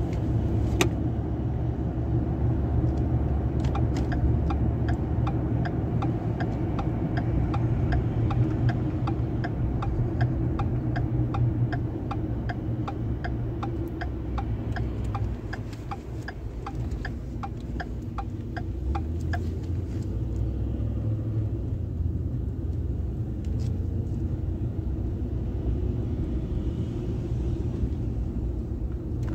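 A car's road rumble heard from inside the cabin while driving, with the turn-signal indicator ticking at an even pace, about one and a half ticks a second. The ticking stops about two-thirds of the way through.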